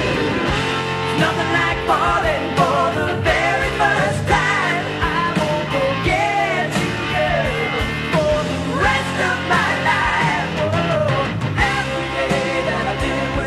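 Background rock song: a singer's melody over a band with regular drum hits.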